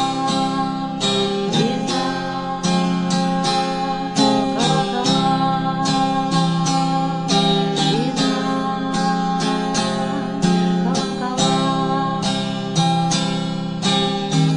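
Acoustic guitar strummed in a steady rhythm, chords ringing between the strokes, with no voice: an instrumental passage of a song.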